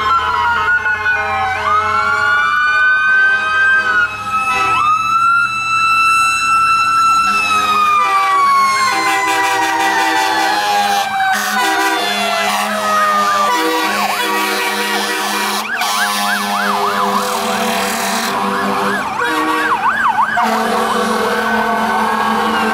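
Several fire apparatus sirens sounding together as the vehicles pass. Wails climb, hold and slide slowly down in pitch, and a rapid yelping siren joins in about two-thirds of the way through.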